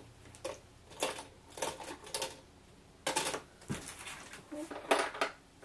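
Scattered light clicks and taps, about eight in all at uneven intervals, from small plastic paint pots being handled on the desk.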